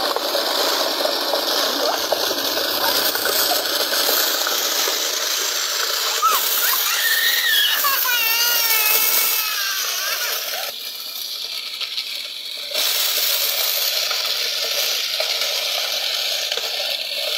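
A homemade wooden belt-driven machine with a large drive wheel, running steadily with a continuous mechanical whirr. The sound drops away briefly about two thirds of the way through, and a high wavering voice is heard in the middle.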